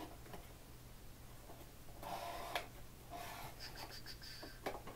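Cardboard toy box and clear plastic tray being handled as the figure's tray is slid out: rustling and scraping with a sharp click about halfway through, a short high squeak, and a few small clicks near the end.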